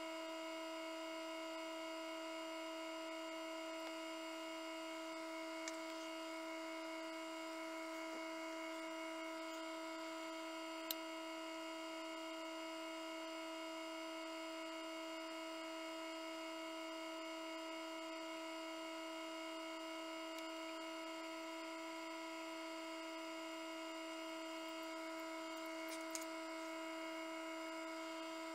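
Steady electric hum of an egg incubator's fan motor, with a few faint clicks.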